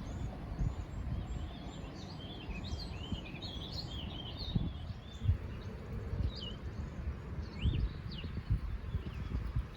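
Small birds singing, with quick runs of high chirps and trills, thickest in the first half, over a steady low rumble with a few dull thumps.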